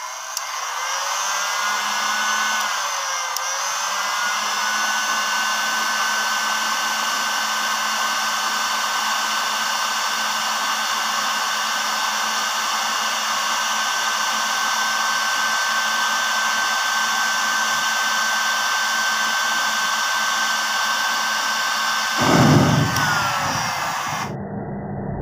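Forward heat gun blowing hot air at close range: a steady whine of its fan motor over a hiss of rushing air, the pitch wavering a little in the first few seconds. About 22 seconds in, a short loud low rush as the matchbox catches fire.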